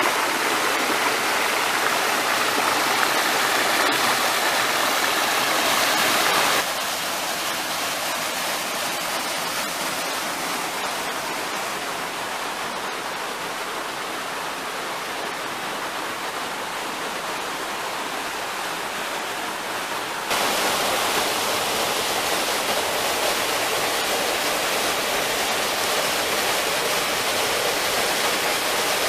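Running water of a creek and a small waterfall pouring into a rock pool, a steady rushing hiss. It drops abruptly to a softer level about seven seconds in and comes back louder about twenty seconds in.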